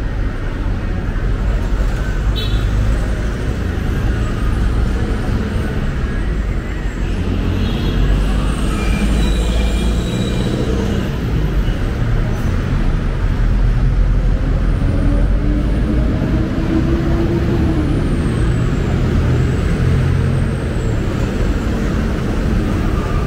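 Busy city street traffic: engines of passing vehicles and a steady low road rumble, with one engine note dropping in pitch partway through.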